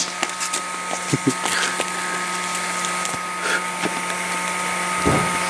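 A bubble volcano machine's small electric fan motor running with a steady hum and whine. There are a few light knocks about a second in and again near the end.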